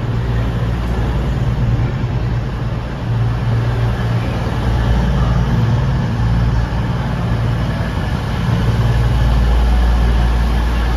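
CrossCountry Voyager diesel train's underfloor engines running at the platform: a steady low drone that grows louder near the end.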